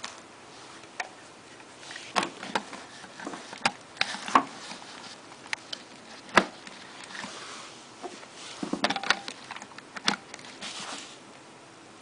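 Irregular sharp clicks and knocks of plastic plug-in timers and plugs being handled at a wall outlet, with some rustling in between. The loudest click comes about six seconds in.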